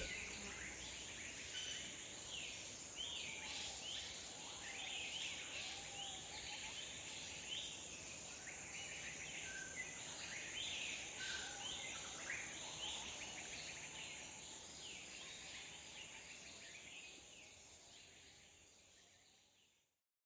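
Faint forest nature ambience: many short bird chirps and calls over a steady high insect drone, fading out near the end into silence.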